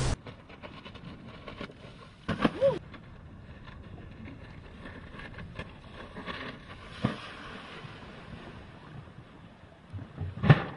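Water rushing and slapping against a windsurf board planing through chop, with light wind on the microphone. A short sound rising and falling in pitch comes about two and a half seconds in, and a sharp thump near the end.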